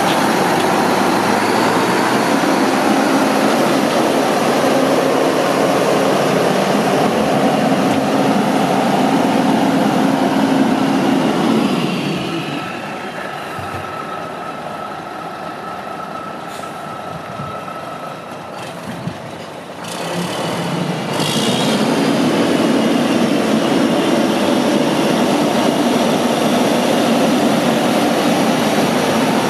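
A 2001 Mack CH612 day cab tractor's diesel engine running as the truck drives off. It turns much quieter about twelve seconds in as the truck gets farther away, then grows loud again about twenty seconds in as it drives back.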